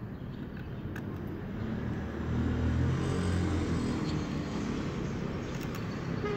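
Low rumble of a passing road vehicle, swelling about two seconds in and easing off, over a steady background hiss.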